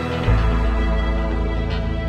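Background music with steady held notes; a deep bass note comes in about a quarter second in and holds.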